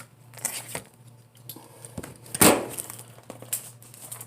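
Packaging being handled by hand: rustling and small clicks, with one loud crinkling tear a little past halfway.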